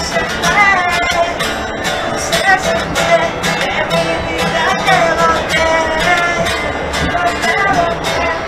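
Acoustic guitar strummed, with a man singing along.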